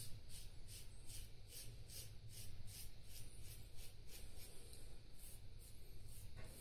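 Feather Popular safety razor scraping lathered stubble in short, quick strokes: a faint, crisp rasp repeating about three or four times a second.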